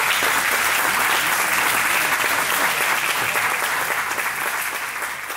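Audience applauding steadily, beginning to die down near the end.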